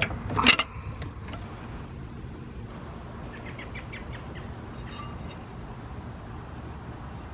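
A sharp metallic clink about half a second in, then a few faint ticks: a hand tool working metal fittings in an engine bay.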